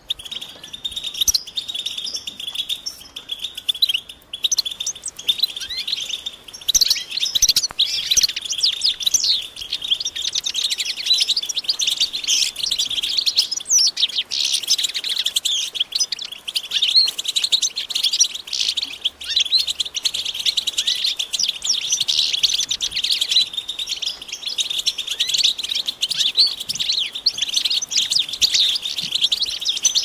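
A flock of European goldfinches calling together in a dense, continuous twittering chatter of rapid chirps and trills, thickening about seven seconds in. These are the goldfinch's mating and readiness calls.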